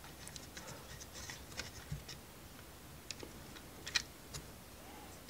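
Light, scattered clicks and taps of laser-cut plywood model parts being handled and fitted together, with a sharper click about four seconds in.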